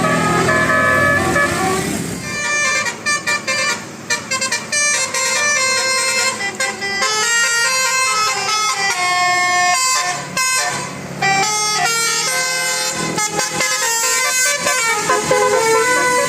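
Bus telolet basuri horn playing a fast melody of short notes that step from pitch to pitch, in phrases with brief gaps between them.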